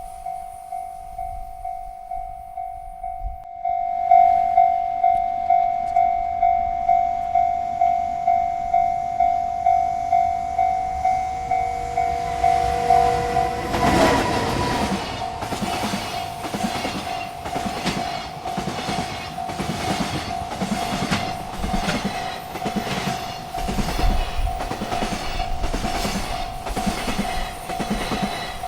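Railroad crossing bell ringing about twice a second, louder after about four seconds. A freight train comes through from about twelve seconds in, its cars clattering over the rails in a steady clickety-clack about once a second while the bell keeps ringing.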